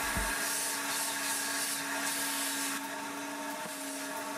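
Carpet extractor running, its clear hand tool drawn across the truck's carpet and sucking up dirty rinse water with a steady hiss over the motor's whine. The hiss gets somewhat quieter about three seconds in.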